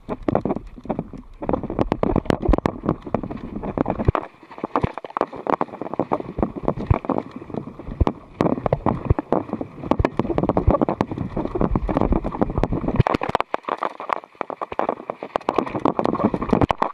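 Mountain bike rattling over a rough dirt singletrack, with dense knocks and clatter from the bumps and wind buffeting the action camera's microphone. The racket eases briefly twice.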